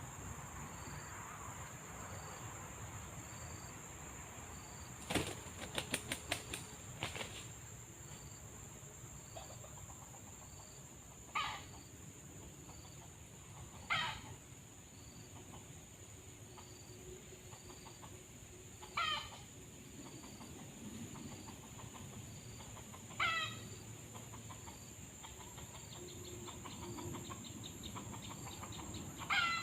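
Five short bird calls spaced several seconds apart, over a steady high insect whine with faint regular chirps. A quick run of clicks comes about five seconds in.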